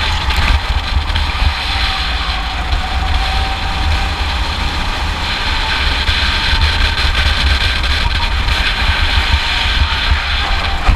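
Rental go-kart's small engine running at racing speed, a steady drone whose pitch drifts up and down a little with throttle through the corners, under heavy wind buffeting on an onboard microphone.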